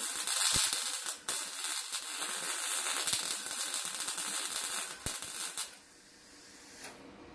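Wire-feed welder arc crackling steadily as a bead is run on the sheet-steel door panel of a VW Type 2 bus, with a brief break about a second in. The welding stops about five and a half seconds in.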